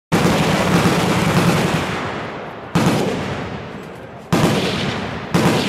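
Minigun firing four bursts at a very high rate of fire, each starting abruptly as a continuous buzzing roar and trailing off in echo. The first burst is the longest.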